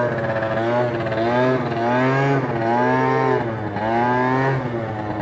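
Sachs Speedjet RS 50cc two-stroke scooter engine under way, heard through a helmet microphone. Its note rises and falls several times as the throttle is opened and eased.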